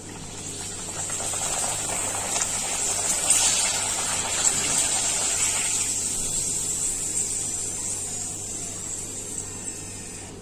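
Urad dal papad deep-frying in hot oil in a metal kadai: a steady sizzle that swells about a second in and fades toward the end as the papad finishes puffing.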